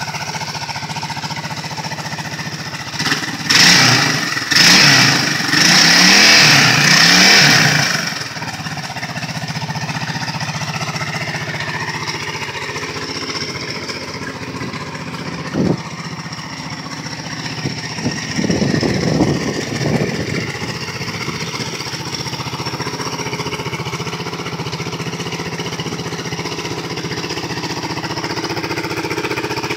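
Suzuki DR650 RSE's single-cylinder four-stroke engine idling steadily, revved in four quick blips a few seconds in and once more about two-thirds of the way through, with a single sharp click midway.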